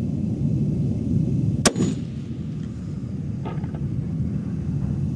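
A single shot from a Swiss K-31 rifle firing GP11 ammunition about one and a half seconds in, a sharp crack with a short echo, over a steady low background rumble.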